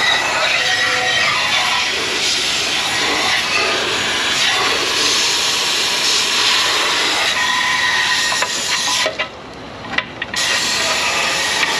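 Garden hose spraying water onto aluminum engine parts to rinse out old sealant debris: a loud, steady hiss of spray that cuts out for about a second near the end, then resumes.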